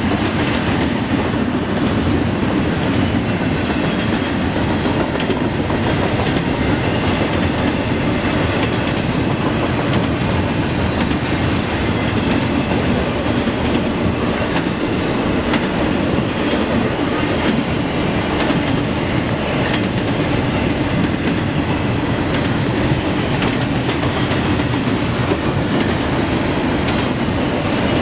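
Norfolk Southern double-stack intermodal freight train rolling past, its well cars' steel wheels rumbling and clattering steadily along the rails.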